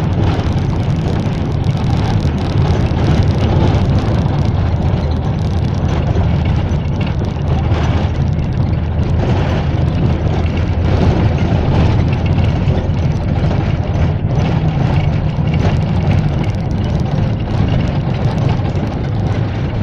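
Minibus driving along a road, heard from inside the passenger cabin: a steady, loud low engine drone with road and wind noise and occasional light rattles.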